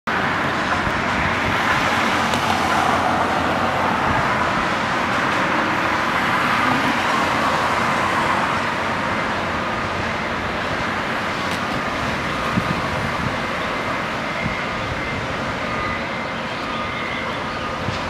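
Steady road traffic noise from passing cars, a little louder in the first eight seconds or so.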